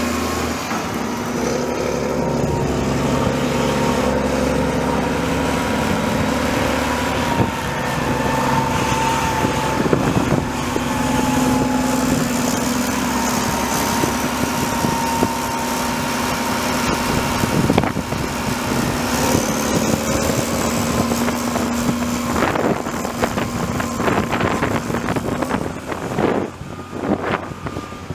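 Cummins L-10 six-cylinder diesel engine of a Ford Versatile 876 4WD tractor running steadily as the tractor drives by. In the last few seconds wind buffets the microphone in gusts.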